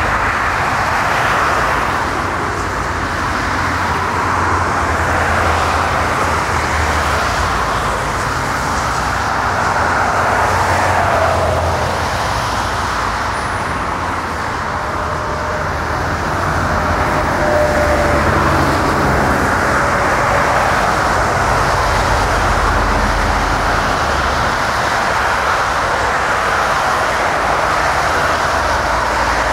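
Jet engine noise of a four-engined Airbus A380 on the runway, heard from across the airfield: a steady rush over a low rumble.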